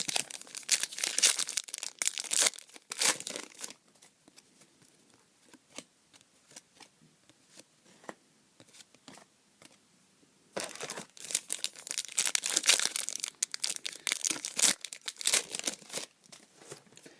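Trading card packs being torn open and their wrappers crinkled: two long stretches of crackly rustling, with a quieter gap of faint scattered clicks between them.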